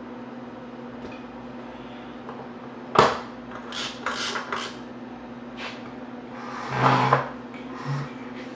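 Metal lid of an Oster waffle maker shut with a sharp clack about three seconds in, followed by lighter clatters of handling and a louder clatter near the end, over a steady low hum.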